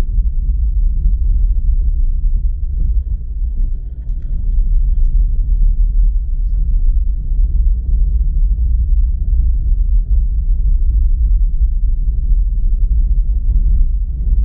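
Steady low rumble of a car on the move, road and engine noise.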